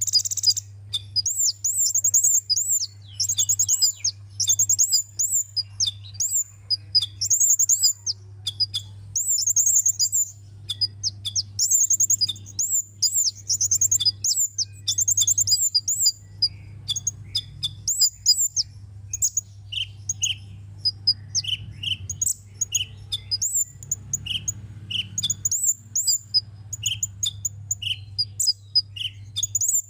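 Sunbird song: rapid, high twittering chirps and trills in quick runs, with shorter, lower notes joining in about halfway through. A steady low hum runs underneath.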